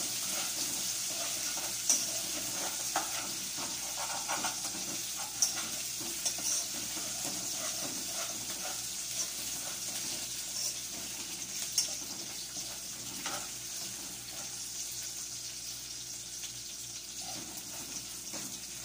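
Garlic and potatoes sizzling in oil in a small pan, stirred now and then, the utensil clicking against the pan a few times. The sizzle gets gradually a little quieter.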